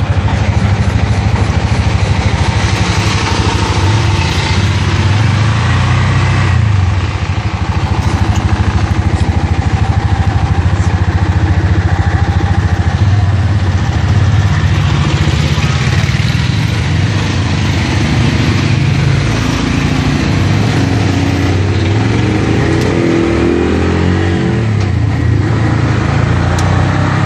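Bajaj three-wheeler's engine running steadily while driving, heard from the driver's seat, its pitch rising and falling a little with speed near the end.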